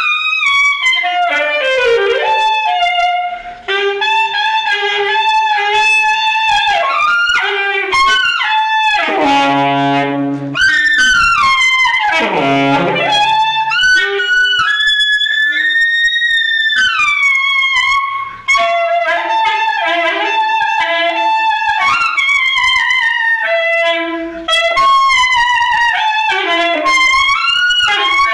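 Saxophone played solo in a jazzy style: quick melodic runs with sliding falls and rises in pitch, and a low note held briefly about a third of the way in.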